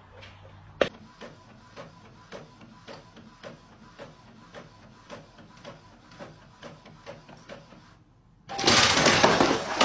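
Epson inkjet printer printing, with a steady ticking about three times a second and a faint steady whine. Near the end a loud, harsh burst of noise about a second long cuts in.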